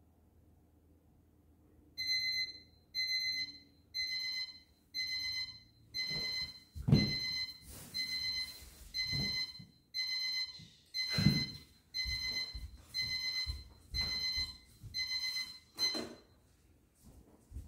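An electronic timer alarm beeping about once a second with a high-pitched tone, the signal that a five-minute silent sit is over; it cuts off near the end. A few dull footstep thumps come in under the beeps as a person gets up from the floor and walks off.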